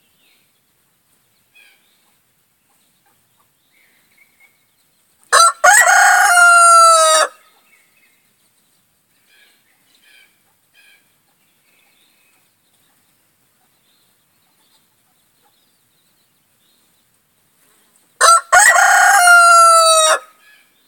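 Rhode Island Red rooster crowing twice, about thirteen seconds apart. Each crow lasts about two seconds: a short first note, then a long held one that drops in pitch at the end. A few faint short calls come in between.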